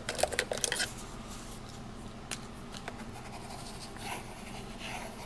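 Fountain pen nib scratching on paper in short test strokes, with a few light clicks and taps of pens being handled.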